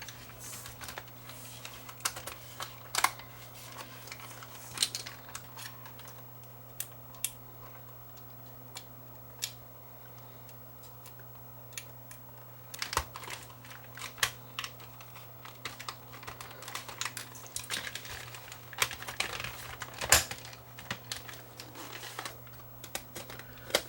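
Small plastic clicks and taps, scattered and irregular, as the parts of a camcorder's body are handled and fitted back together by hand, over a steady low electrical hum.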